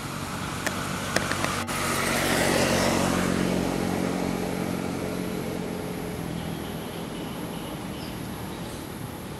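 A motor vehicle passing by: engine and tyre noise swell to a peak about two to three seconds in, then fade away gradually.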